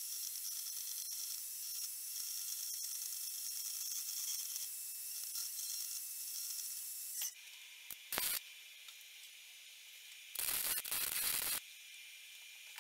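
Bandsaw running steadily as its blade cuts a notch into the steel dagger tang, a thin high whir. About seven seconds in it gives way to two short bursts of welding, one brief and one about a second long, as threaded rod is welded into the notch.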